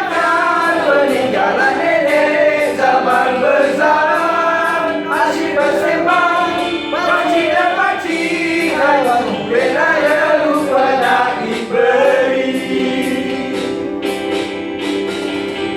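Background music of a group of voices singing a melody together, with no spoken words.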